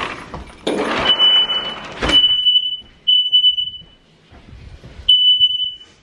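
Household smoke alarm sounding a steady high-pitched beep in the three-beep evacuation pattern: three long beeps, a pause of about a second, then three more, louder. A burst of rustling noise in the first two seconds ends in a sharp knock.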